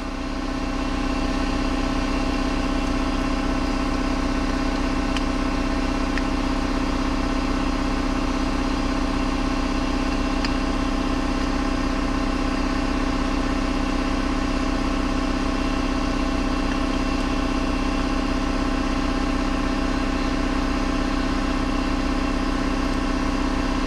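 Shop air compressor running steadily, a constant drone with a strong low tone.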